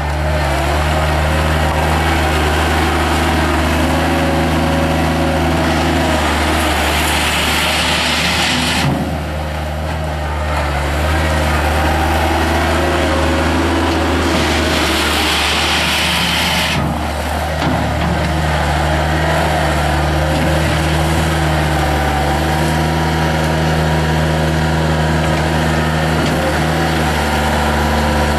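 1995 Bobcat 853 skid steer loader's diesel engine running steadily, with a harsher hissing sound over it for the first nine seconds or so and again from about twelve to seventeen seconds in.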